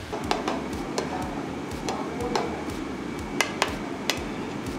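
Long metal spatula stirring eggs in a huge flat griddle pan, knocking and scraping irregularly against the metal over a steady background hiss.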